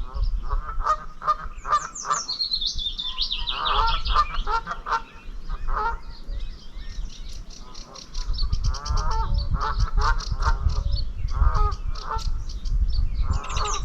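Geese honking in repeated bouts, with a small songbird singing high trilling phrases over them about two seconds in and again near the end. A low rumble comes in about eight seconds in.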